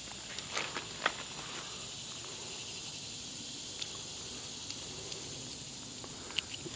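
Steady high-pitched drone of summer insects, with a few faint clicks and rustles near the start and again near the end.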